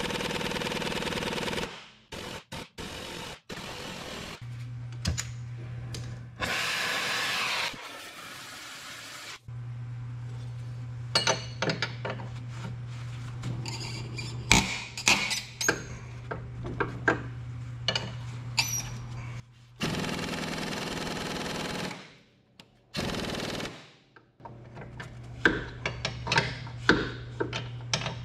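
Pneumatic ratchet wrench on a truck torque rod bolt, running in short bursts of a second or two, with sharp metal clinks and knocks of tools on the suspension between the bursts. A steady low hum sits under much of it. The bolt is not freeing, which the mechanic soon takes for a bolt seized in the bushing.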